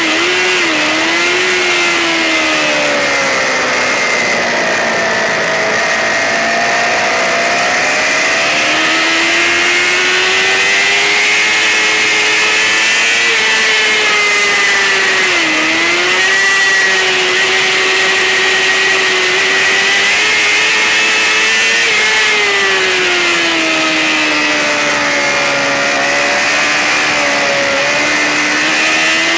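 A racing sportbike's engine running hard and continuously, its pitch rising and falling with throttle and gear changes, with brief quick dips near the start and twice more later. A strong steady rushing noise runs under it.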